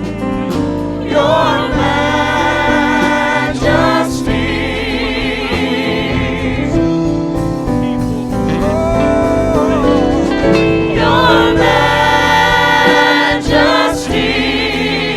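Gospel song: several voices singing with vibrato over instrumental accompaniment.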